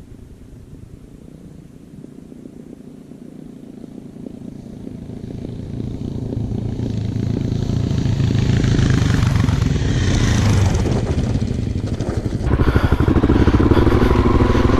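Suzuki DRZ400 dirt bike's single-cylinder engine growing steadily louder over several seconds as it draws near, then running loud and close, with a sudden step up in loudness about twelve seconds in.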